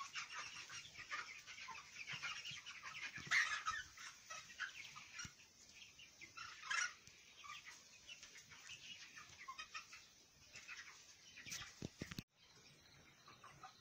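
A flock of broiler chickens calling, a dense chorus of many short, overlapping high calls that thins out after about ten seconds. The sound drops off suddenly near the end.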